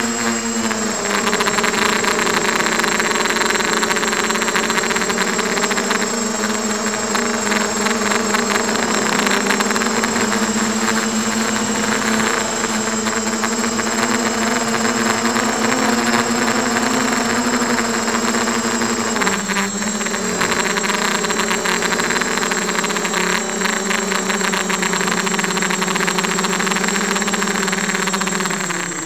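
A Diatone 250 quadcopter's four Emax 1806 brushless motors and HQ props buzzing in flight, heard through the onboard camera. The pitch holds fairly steady, dropping briefly about 19 seconds in and again near the end as the throttle eases.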